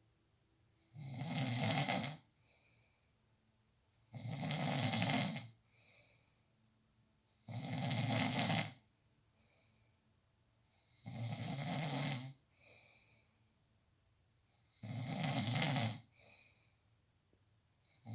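A person snoring loudly: five long snores, each about a second long and coming roughly every three and a half seconds, with a faint softer breath sound between them.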